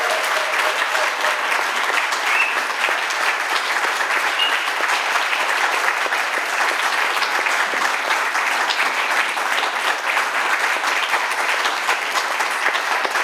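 Audience clapping steadily, a dense patter of many hands, as the last note of the tango music dies away in the first second.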